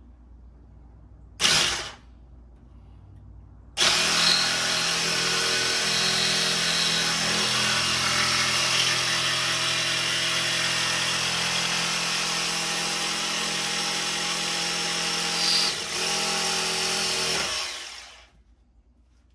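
Ryobi jigsaw with a fine metal-cutting blade sawing out the cross piece of a Ram truck's factory grille. A short burst about a second and a half in, then one steady cut of about fourteen seconds that stops shortly before the end.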